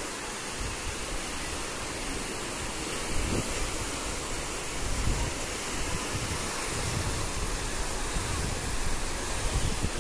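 Swollen, muddy floodwater rushing and churning past railway bridge piers: a steady rushing noise. Low gusts of wind buffet the microphone now and then, most of all near the end.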